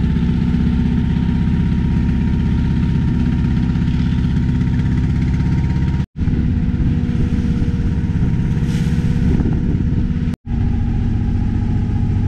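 A small wooden passenger boat's inboard engine running steadily under way, a deep, even drone with a strong low hum. It cuts out twice for a split second.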